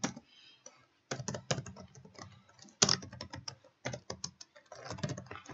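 Typing on a computer keyboard: a quick, irregular run of keystrokes, picking up about a second in.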